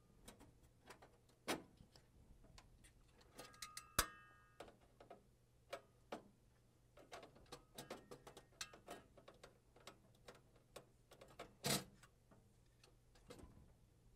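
Paper guides in a printer's paper tray being handled and dropped into their letter-size slots: scattered plastic and sheet-metal clicks and knocks over a faint low hum. One click about four seconds in rings briefly like metal, and a louder knock comes near the end.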